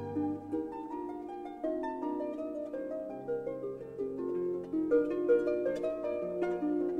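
Background music: a slow melody of plucked-string notes, one after another, over held low bass notes.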